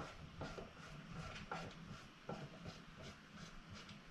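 Faint, scattered clicks and scrapes, some briefly squeaky, from a screwdriver and hands working plastic and metal parts inside a projector's housing.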